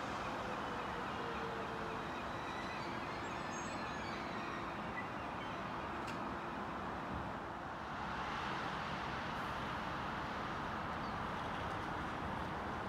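Class 71 Airport Express electric train pulling slowly into the station, its motor whine falling in pitch as it slows. About eight seconds in the sound changes to a steady hum and hiss.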